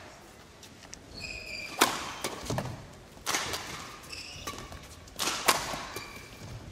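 Badminton rally: rackets strike the shuttlecock three times, each a sharp crack with a short echo. Between the strokes come brief high squeaks of shoes on the court floor.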